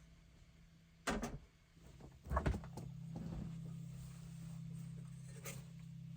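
Two short knocks about a second apart, then a low steady hum starts and keeps going.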